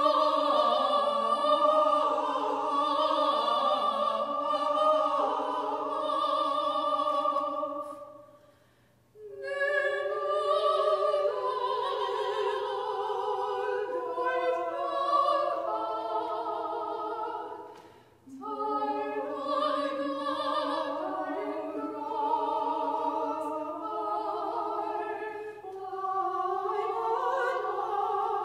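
Classical, operatic-style singing of a slow song: long held notes with wide vibrato. The singing breaks off briefly between phrases about a third and two thirds of the way through.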